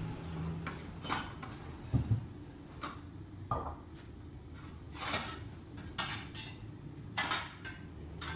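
Metal tools and parts clinking, knocking and scraping irregularly, about half a dozen separate strokes, as a tyre-spreading tool and hand tools are handled inside a tractor tyre.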